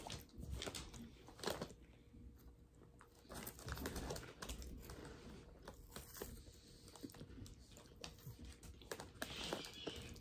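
Faint, scattered crinkling and crunching of someone eating Carolina Reaper cheese curls out of a plastic snack bag.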